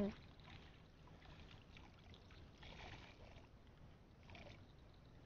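Faint splashing and sloshing of shallow muddy water stirred by a person wading and working in it by hand, swelling softly about three seconds in and again about four and a half seconds in.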